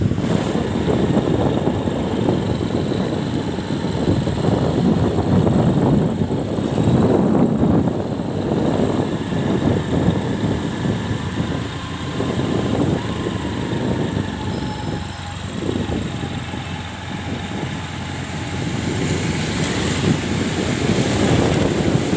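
Loud, continuous rumble of wind buffeting the microphone mixed with rushing floodwater, rising and falling unevenly.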